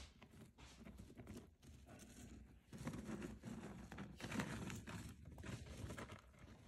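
A hamster rummaging and digging through dry food mix inside a zip-lock plastic bag: crinkling plastic with irregular small clicks and rustles of pellets and seeds, busier in the middle.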